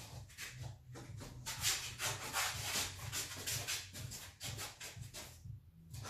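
Shuffling, scuffing footsteps of a man and a dog's paws on a concrete floor: a quick, uneven run of short rubbing and scraping sounds that pauses briefly near the end. A low steady hum runs underneath.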